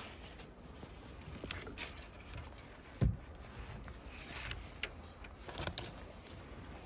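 Rabbits shifting and pattering about on the wire floor of a wooden hutch: scattered light taps and rustles, with one low thump about three seconds in.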